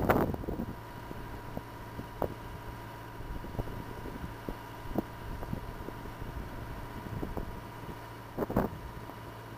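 A drilling rig's engine idling steadily in the background, with brief gusts of wind on the microphone at the start and again near the end, and a few small clicks of handling.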